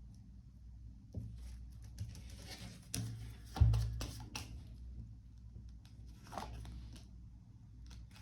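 Tarot cards being handled and laid out on a table: scattered soft rustles and clicks, with a dull thump about three and a half seconds in.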